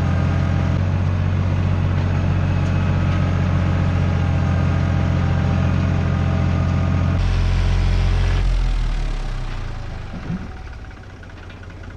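Tractor diesel engine running steadily. About seven seconds in the sound changes abruptly, and the engine then fades away until it is much quieter.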